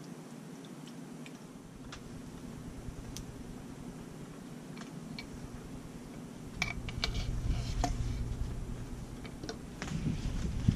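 Light metal clicks and taps as a fork piston rod is fed by hand down into a Nitron TVT cartridge inside a motorcycle fork tube. The clicks come in a cluster about two-thirds of the way in and again near the end. Low wind rumble on the microphone starts about two-thirds of the way in.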